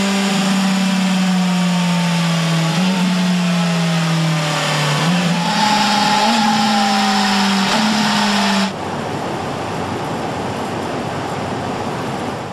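BMW S 1000 RR inline-four engine running on a rolling-road test stand in an end-of-line test, its pitch sagging slowly and then stepping up several times. It cuts off suddenly about two-thirds of the way through, leaving a steady factory hum.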